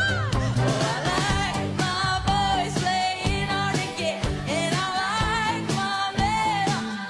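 Pop song with a woman singing the lead, her voice wavering in pitch over a steady bass line and beat.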